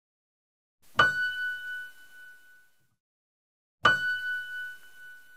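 A single high piano note struck twice, about three seconds apart, each ringing out and dying away over a second or two.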